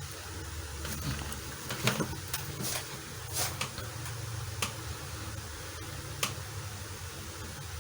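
Packaging being handled during an unboxing: scattered short clicks and rustles, the loudest a little under two seconds in, over a steady low hum.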